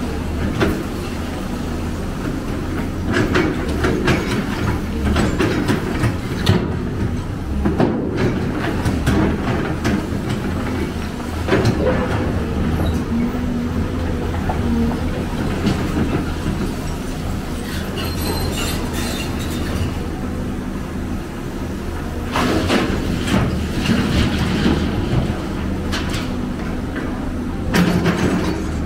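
Large excavator at work: its diesel engine runs steadily under metallic clanking and scraping, with louder clanks every few seconds.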